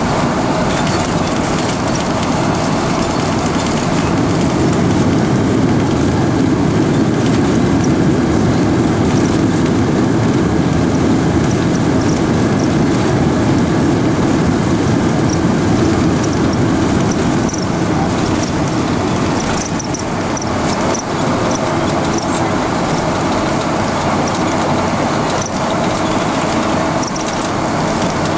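Steady loud roar and rumble inside the cabin of a Boeing 747 as it rolls down the runway after touchdown, easing slightly in the second half, with a few faint rattles and clicks.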